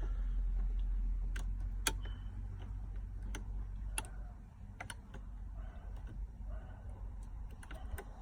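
Irregular light plastic clicks and taps from a BMW F07/F10 start-stop button being worked into its dashboard opening while its two side clips are lined up, over a low steady hum.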